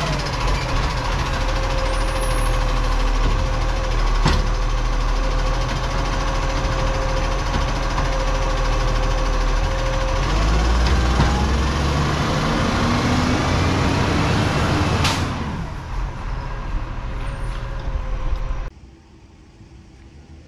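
Side-loading garbage truck's diesel engine running as the truck drives off, its pitch rising as it pulls away, with a short sharp air-brake hiss about three-quarters through. The sound cuts off suddenly near the end.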